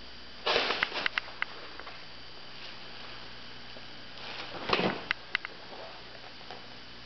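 Kitten scrambling on a crinkly plastic bag: two short bursts of rustling with sharp clicks, one about half a second in and one about four seconds in.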